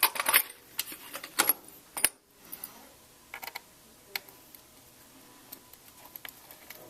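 Small Phillips screwdriver working a tiny screw in a laptop's aluminium bottom case: a quick cluster of light metallic clicks and scrapes in the first two seconds, then scattered faint ticks.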